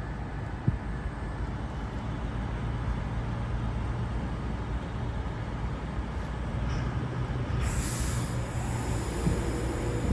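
Two passenger trains pulling out of the station, a Class 220 Voyager diesel unit and a Class 390 Pendolino electric train. They make a steady low rumble with an engine hum, and a high hiss joins in near the end.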